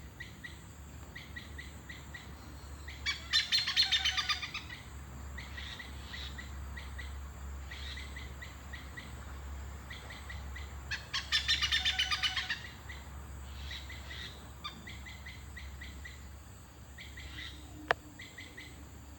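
A bird calling: short chirps repeated every fraction of a second, broken twice by louder bursts of rapid notes, about three seconds in and again about eleven seconds in. A steady low hum runs underneath.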